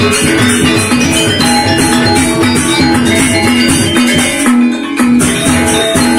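Lombok saron ensemble playing: metallophones ringing out a quick run of notes over hand-beaten drums and a steady high jingling, with a short drop-out about four and a half seconds in before the full ensemble comes back.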